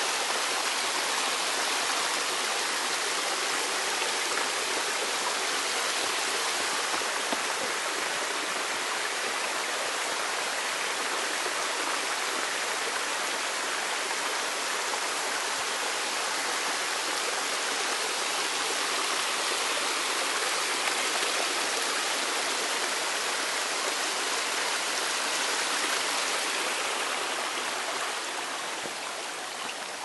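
A mountain stream rushing over rocks in small cascades: a steady, even wash of water noise that grows a little quieter near the end.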